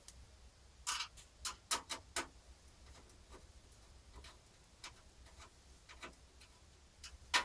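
Light, scattered clicks and taps of PC parts being handled and fitted into a computer case, with a quick run of sharper clicks about a second in and a single loud click near the end.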